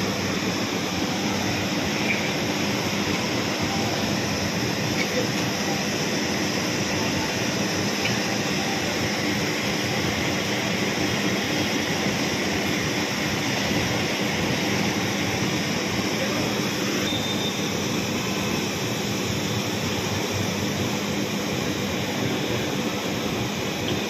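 Three-phase package air conditioner running, its condenser fan blowing a strong, steady rush of air over a constant mechanical hum. The unit has just been started and is being charged with R22 refrigerant.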